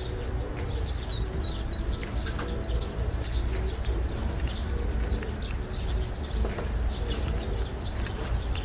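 A small bird chirping in three quick runs of about three high notes each, roughly two seconds apart, over a steady low rumble.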